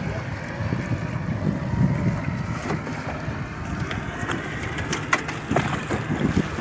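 Wind rumbling on the microphone on a small open boat at sea, with water sloshing. In the last couple of seconds come several sharp splashes and knocks as a handline is hauled in hand over hand to the boat's side.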